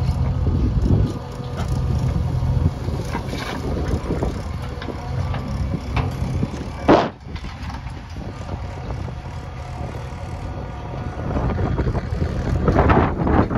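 JCB backhoe loader's diesel engine running, with wind noise on the microphone and one sharp brief sound about halfway through.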